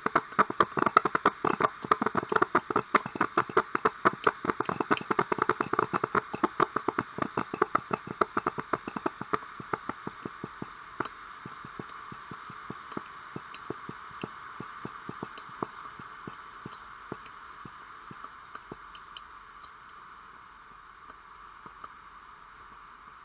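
Coffee machine brewing: rapid, irregular spitting and popping over a steady hiss. The spurts thin out and fade about halfway through, leaving a softer hiss.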